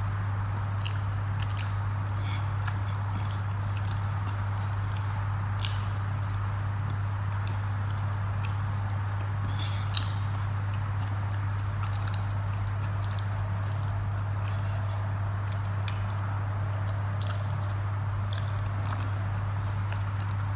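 Eating with the fingers: fingers squishing and mixing rice with fish curry on a plate, and soft chewing and mouth smacks, heard as scattered small clicks. A steady low hum runs underneath throughout.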